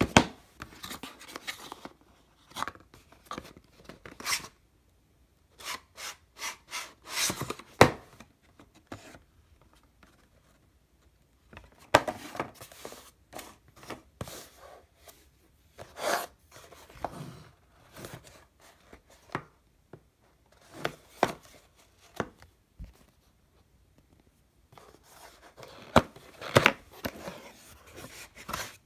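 Cardboard packaging being handled: a thin cardboard inner box slid out of its printed retail box and its flaps opened, with irregular rubbing and scraping and a few sharp taps, broken by short pauses.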